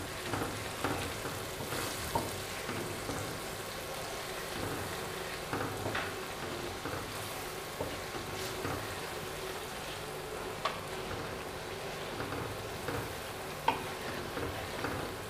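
Onion, tomato and ground-spice masala sizzling in oil in a non-stick wok as a wooden spatula stirs it. A few soft knocks and scrapes of the spatula against the pan are heard along the way. The masala is being fried (bhunai) after the spices go in.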